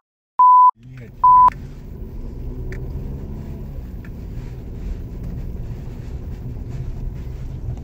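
Two short, loud censor bleeps in the first second and a half, with the sound cut out around them. Then the steady low rumble of a car interior while driving slowly over a rutted dirt road, with faint knocks.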